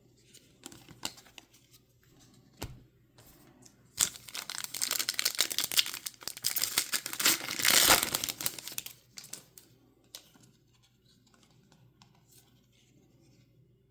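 Plastic wrapper of a trading-card pack being torn open and crinkled. The rustling lasts about five seconds from a third of the way in, with a few light taps of card handling before and after it.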